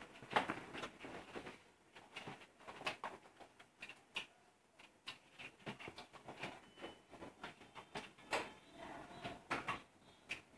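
Faint, irregular small clicks and light taps in a small room.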